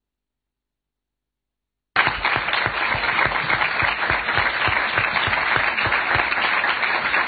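Audience and panel applauding, a dense patter of many hands clapping that starts abruptly about two seconds in after dead silence.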